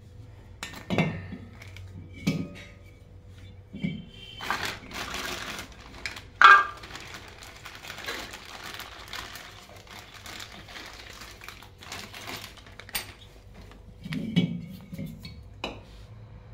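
A new hermetic refrigerator compressor being handled: a few knocks and clinks against its steel shell and mounting plate, then a plastic bag crinkling for several seconds with one sharp click in the middle, and more knocks near the end.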